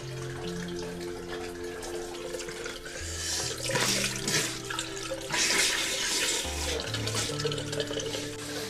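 Tap water running into a bathroom sink, with two splashes about three and five seconds in as hands throw water onto a face. Soft background music of slowly changing held notes plays throughout.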